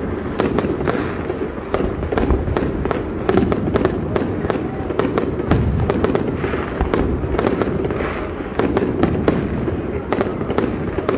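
Aerial fireworks display: shells bursting in a rapid, continuous string of sharp bangs, several a second, over a dense low rumble.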